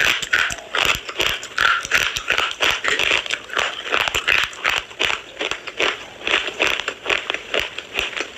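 Slate pencils being bitten and chewed close to the microphone: a rapid, irregular run of sharp, dry crunches, several a second.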